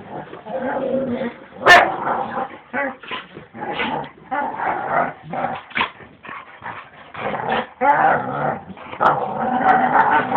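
Two dogs play-fighting, growling and snarling almost without pause, with one sharp snap about two seconds in.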